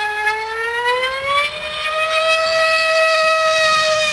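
F3D pylon-racing model aircraft's small two-stroke glow engine, an IR 40, running flat out in flight with a high-pitched, steady scream. Its pitch rises about a second in and then holds.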